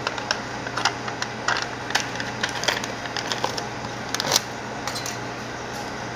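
Foil lid being peeled off a plastic yogurt cup: irregular crinkling and clicking, loudest a little after four seconds, with a metal spoon in hand against the cup.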